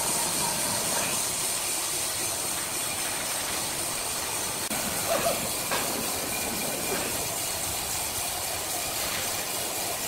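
Steady hiss of sawmill workshop noise, with a few short swishes of a straw broom sweeping sawdust off sawn wooden slabs near the middle.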